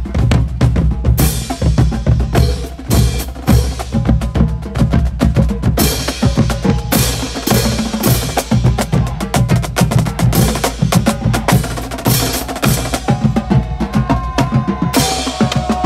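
Marching band drumline playing a marching cadence, snare and bass drums in a fast steady beat, with brass horns coming in near the end.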